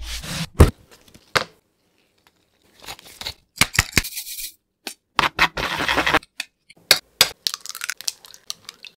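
Close-miked food-prep sounds one after another: cling film crinkling around a rolled chicken breast, then the rattle of salt shaken from a shaker onto flour, then a run of short sharp clicks and taps.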